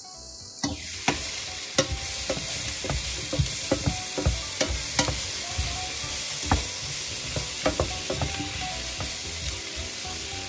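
Courgette slices and onions sizzling in a stainless steel frying pan, stirred with a wooden spatula that knocks and scrapes against the pan at irregular moments. The sizzle starts about half a second in.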